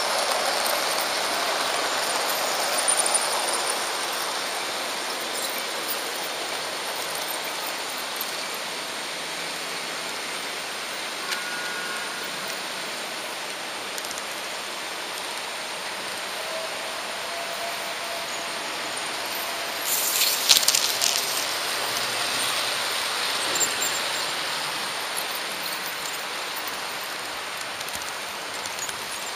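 HO-scale model train running on Märklin track, giving a steady rolling hiss and rattle of small wheels on the rails. About two-thirds of the way through comes a short burst of sharper clicking and clattering.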